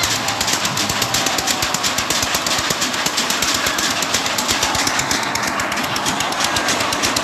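A small fairground track ride running, with a rapid, even mechanical knocking of about eight to ten beats a second.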